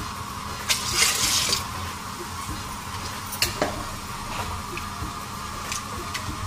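Water poured from a cup into a pot of rajma gravy. It splashes loudest about a second in and again briefly around three and a half seconds, and a spoon stirs the pot near the end.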